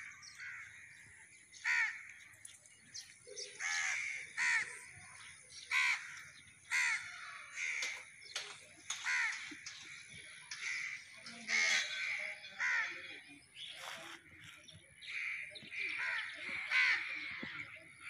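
Crows cawing, short calls coming about once a second, sometimes two in quick succession.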